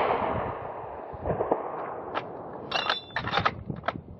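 The echo of a hunting gunshot, fired just before, dies away across a wooded valley over about two seconds. A few short sharp clicks and metallic clinks follow about three seconds in.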